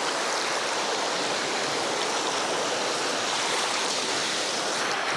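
Fast-flowing whitewater of a mountain river rushing steadily, with no breaks or separate splashes.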